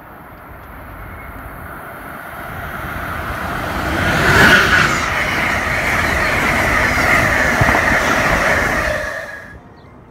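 Amtrak passenger train of stainless-steel Amfleet coaches passing at speed. It builds as it approaches, is loud for about five seconds as the cars go by, then drops away sharply near the end.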